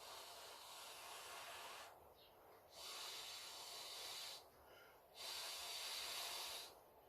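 Faint hissing breaths close to the microphone, three of them, each lasting about a second and a half with short pauses between.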